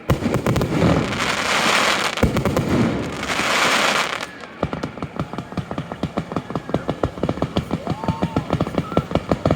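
Fireworks: three loud hissing, crackling bursts in the first half, then from about halfway a rapid, even run of sharp pops, about five or six a second.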